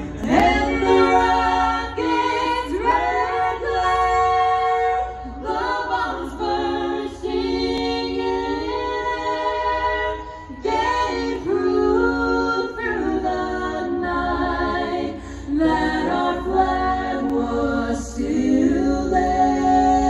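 A song with several singing voices, female voices to the fore, sung in a choral, a cappella style with held, gliding notes.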